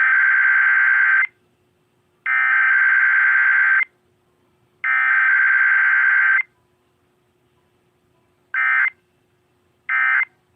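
Emergency Alert System SAME digital data bursts encoding a Required Weekly Test. They come as three harsh, screechy electronic bursts of about a second and a half each, then three much shorter bursts about a second and a half apart.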